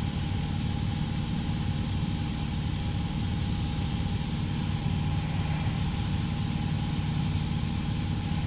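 Piper PA-28-181 Archer's four-cylinder Lycoming O-360 engine and propeller running steadily in flight, heard inside the cockpit, with a thin steady tone above the engine drone.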